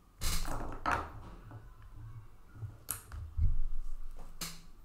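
Desk handling noises close to the microphone: a short rustle, then a couple of sharp clicks and a low knock about three seconds in.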